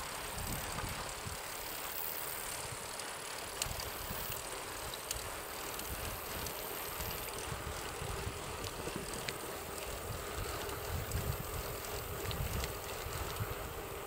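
A bicycle rolling along a paved path: a steady rush of tyre and wind noise, with wind buffeting the microphone in uneven gusts and scattered light ticks and rattles.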